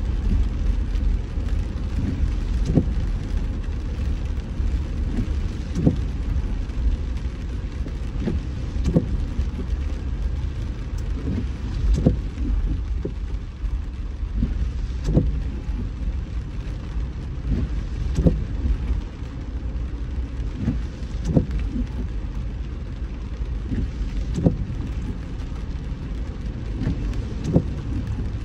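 Car driving on a wet road in rain: a steady low road rumble with rain noise, and a short knock about every three seconds.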